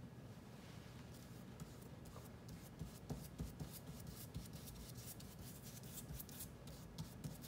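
A paintbrush brushing thick homemade baking-soda gesso onto paper: faint, irregular scratchy bristle strokes, coming thicker from about two and a half seconds in.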